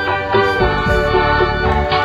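Background instrumental music with held notes.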